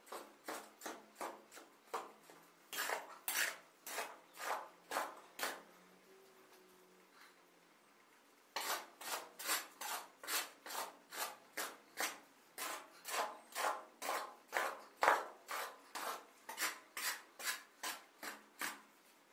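Shovel blade scraping across a concrete floor and through a pile of sand and cement as dry mortar is turned over, in a steady rhythm of about two strokes a second. The strokes pause for a couple of seconds midway, then resume.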